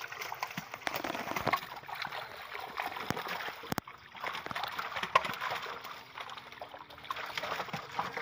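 Shallow water sloshing, with many small irregular splashes, as fish are gathered by hand from a water-filled plastic sheet.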